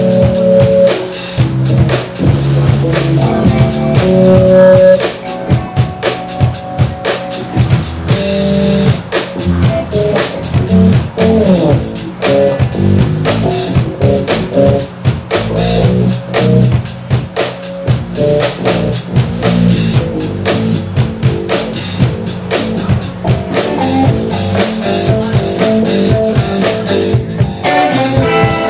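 Live blues band playing an instrumental passage with no vocals: electric guitar lines over electric bass and a drum kit keeping a steady beat.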